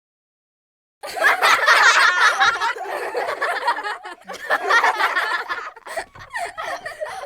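Laughter sound effect starting about a second in after silence, loud and continuous at first, then breaking into shorter bursts near the end.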